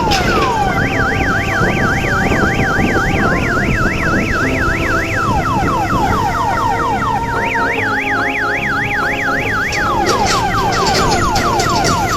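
Odong-odong mini train's electronic siren effect: a fast up-and-down warble, about four or five cycles a second, alternating with runs of quickly falling whistle-like sweeps, over steady low noise.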